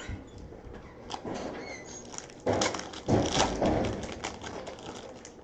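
Trading card packs being handled and cards flipped through by hand: rustling and small clicks, with two louder rustles about two and a half and three seconds in.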